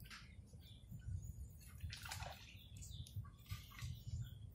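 Water splashing and sloshing in a few short bursts as a fish is tipped from a landing net into a mesh keep net sitting in pond water.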